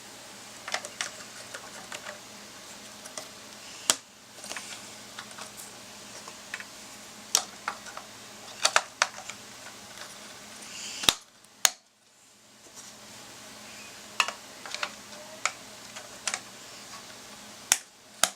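Irregular clicks, taps and knocks of computer parts and the case being handled during a PC build, with a few sharper clacks about 4, 11 and 18 seconds in.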